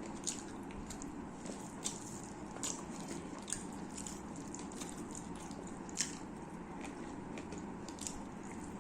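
Close-miked eating: chewing with short, sharp mouth clicks and smacks every second or two, one louder smack about two-thirds of the way through.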